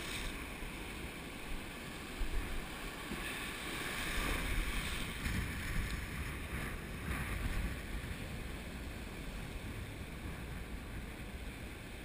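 Ocean surf washing and foaming around a wading angler, with wind buffeting the microphone; the wash swells a little about four to five seconds in.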